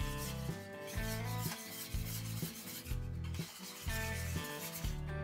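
Wire whisk scraping and rubbing against a stainless steel pan while stirring egg yolks and sugar into reduced milk for a custard base, over soft background music.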